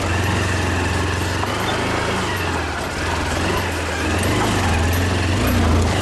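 Motorcycle engine running under load, its pitch rising and falling as the throttle changes.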